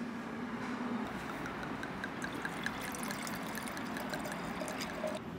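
Wine pouring from a glass bottle into a stemmed wine glass: a steady trickle of liquid, with a run of quick, evenly spaced glugs from the bottle neck between about one and three seconds in.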